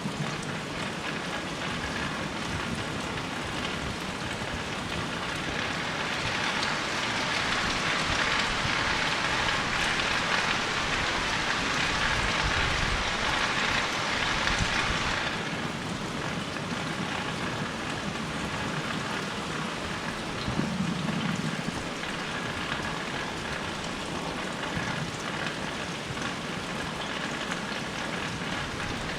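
Rain falling steadily as an even hiss, heavier for a stretch around the middle before easing back.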